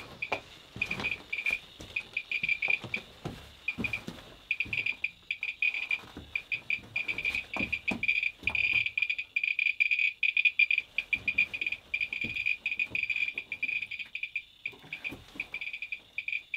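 Geiger counter clicking fast and irregularly, a stream of short high chirps whose rate swells and thins as it is held to uranium-mineralized rock on the mine wall, with scattered knocks among them.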